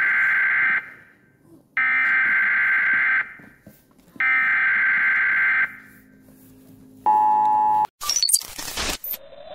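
Emergency-broadcast alert tones: three long electronic beeps of about a second and a half each, evenly spaced, then a shorter, lower beep. A burst of crackling digital static follows, and a rising electronic sweep starts at the very end.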